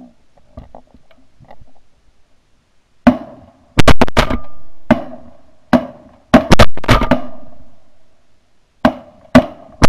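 Volley of shotgun fire from several hunters: about a dozen loud shots in quick succession, starting about three seconds in, each bang ringing out briefly before the next.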